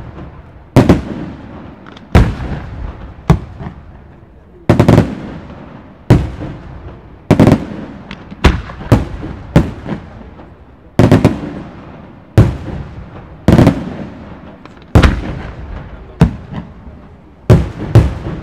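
Aerial firework shells bursting one after another, about one sharp bang a second. Each bang is followed by a rolling echo that dies away before the next.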